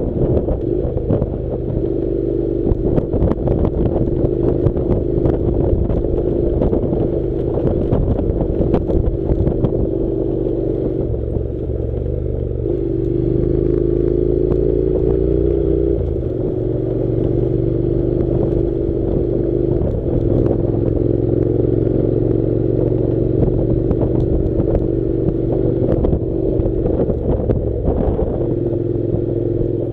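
Honda NC700's parallel-twin engine running under way on a dirt track, its note holding steady and then stepping up or down several times as speed changes. Over it come many short clattering knocks from the bike jolting over the rough ground, thickest in the first ten seconds or so.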